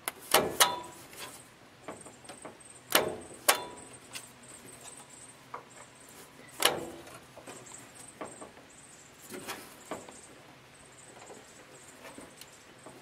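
Sharp metallic clicks and clacks from a Bosch starter's pinion and the engine's flywheel ring gear as their mesh is checked: a close pair at the start, another pair about three seconds in, a single one a few seconds later, then fainter ticks. No starter motor spinning is heard.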